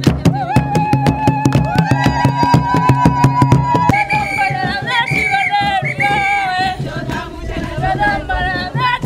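Group of voices singing a traditional African dance song over fast, even hand claps. About four seconds in the clapping stops and the singing continues with wavering high notes.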